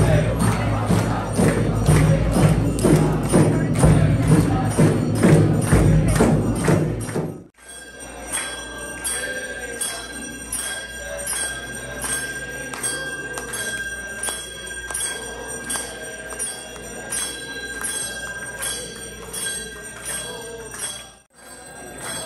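Devotional music with a quick, steady beat of clapping and jingling percussion over a crowd. After about seven seconds it cuts to quieter temple aarti bells, struck over and over with a steady ringing tone.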